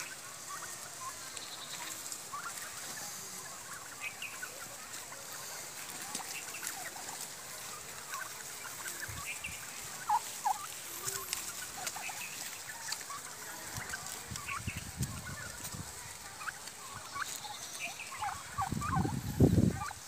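A flock of domestic turkeys calling, with many short, high clucks and yelps scattered throughout. A louder, deeper sound comes near the end.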